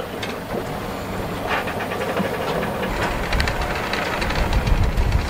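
Sailboat's inboard engine running steadily, with a deeper low rumble coming in about halfway through and a few light clicks.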